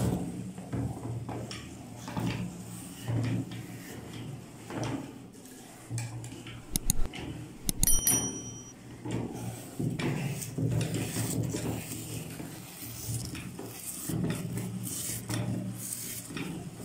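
Hand-cranked metal meat grinder grinding chocolate wafer bars, the handle turning and the auger crunching and rattling in an uneven rhythm. About seven to eight seconds in, a few sharp clicks and a short high ding sound over it.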